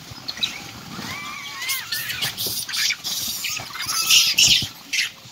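A troop of rhesus macaques squealing and screeching while they scramble for apples: short rising-and-falling squeals in the first half, then louder, harsher screeches about four seconds in.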